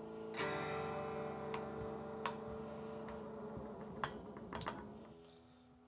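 Electric guitar with a tremolo (whammy) bridge, strummed hard about half a second in and then picked four or five more times, the strings ringing between strokes and fading out near the end.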